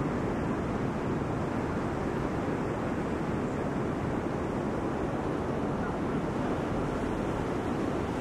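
Heavy storm surf breaking and washing up the beach: a steady, even rush of breaking waves and whitewater with no distinct crashes standing out.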